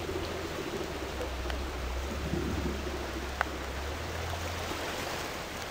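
Steady rushing of a flooded river's fast, muddy water, heard with a low rumble; a single sharp click stands out about three and a half seconds in.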